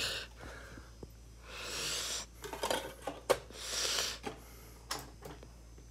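A CD and its plastic jewel case being handled: rubbing and scraping of hard plastic in three short spells, with several sharp clicks as the disc is set onto a top-loading boombox's spindle.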